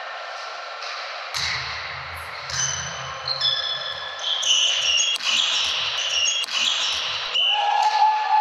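Volleyball rally in a gym: sneakers squeaking on the court floor and a couple of sharp ball hits, echoing in the hall.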